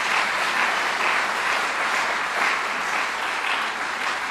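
Audience of seated dinner guests applauding, steady clapping that eases slightly near the end.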